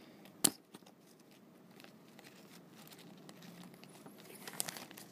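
Scissors cutting a thin plastic zip-lock bag: one sharp snip about half a second in, then faint crinkling of the plastic with a few small clicks near the end.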